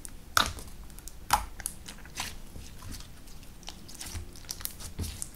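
Clear slime with fake snow mixed in being kneaded and folded by hand, giving irregular wet clicks and pops, with a few louder pops in the first two seconds.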